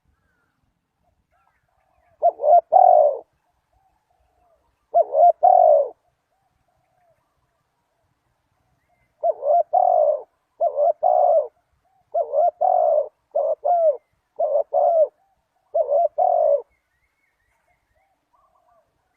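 Spotted dove cooing in short repeated phrases of a few coos each: two phrases a few seconds apart, then a run of six or seven phrases in quick succession. This is the call used to rouse a decoy dove when trapping.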